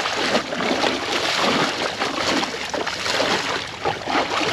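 Sea water splashing and churning in an irregular, continuous rush as a mako shark thrashes alongside the boat's hull while it is held at the gunwale.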